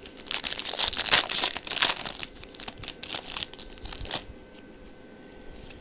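A football trading-card pack's wrapper being torn open and crinkled, a dense crackling that runs for about four seconds and then stops.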